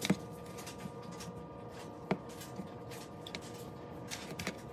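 Metal kitchen tongs clicking and tapping against mixing bowls while a green tomato slice is dredged in coating and dipped in egg mixture: a few sharp clicks, the loudest right at the start, over a faint steady hum.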